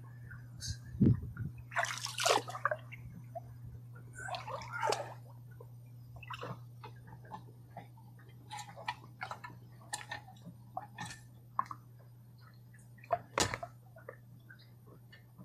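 Water splashing and sloshing in irregular bursts, with scattered clicks and knocks, over a steady low hum.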